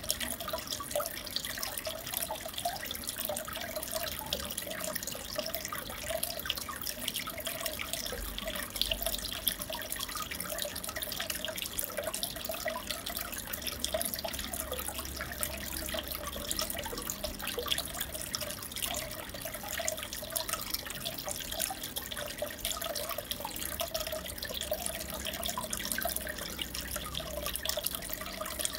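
Aquarium water trickling and bubbling steadily, with a constant patter of small drips and bubble pops.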